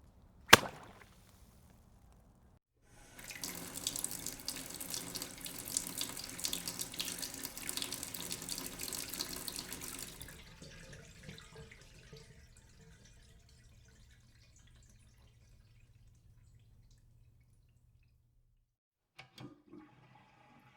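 Water running from a tap into a sink for about seven seconds, then fading away. A sharp click about half a second in is the loudest sound, and a couple of faint knocks come near the end.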